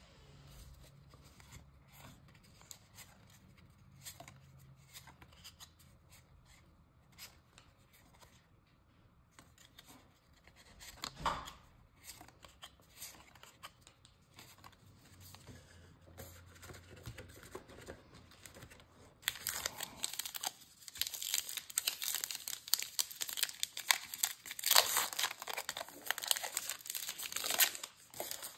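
Trading cards being handled with faint rustles and soft clicks, then, about two-thirds of the way in, the wrapper of a Topps baseball card pack being torn open and crinkled for several seconds.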